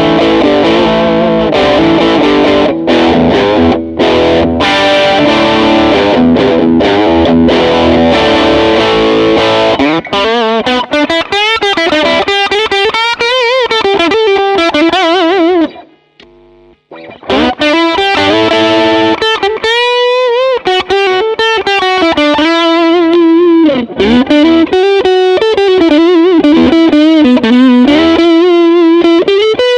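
Harley Benton SC-DLX electric guitar with Tesla split-coil pickups, played through a Hotone Ampero One modeler. For about the first ten seconds it plays chords. After that it plays single-note lead lines with string bends and vibrato, stopping briefly about sixteen seconds in.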